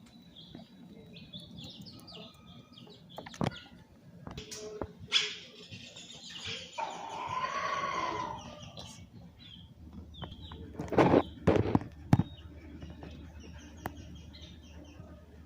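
Small birds chirping in short repeated calls, with several sharp knocks, the loudest about eleven to twelve seconds in, and a rushing noise from about five to nine seconds in.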